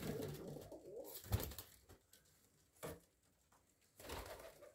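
Broad-tailed tumbler pigeons in a small wooden loft: faint cooing and wing flapping, with short knocks about a second in, near three seconds and near the end.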